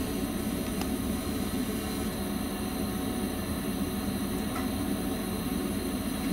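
Steady hum and rumble inside the driver's cab of an NS Sprinter electric train, with a couple of faint clicks.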